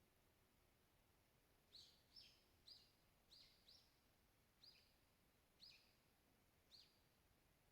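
A small songbird giving about eight faint, short, high chirps, each quickly dropping in pitch, spaced roughly half a second to a second apart, over a faint background hiss.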